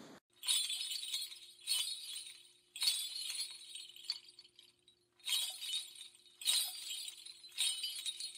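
Bright shimmering chime strikes, six of them in two groups of three, each ringing out for about a second, over a faint steady held note.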